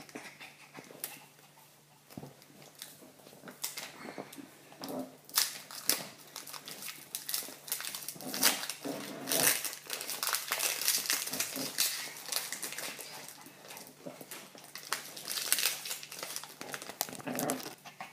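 Foil wrapper of a Pokémon trading card booster pack crinkling as it is torn open and handled, a quick irregular crackle that grows denser in the second half.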